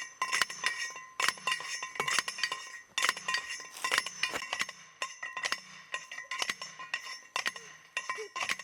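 Steel sand point well pipe being driven into the ground: rapid repeated metal-on-metal strikes, about three a second, each leaving the pipe ringing.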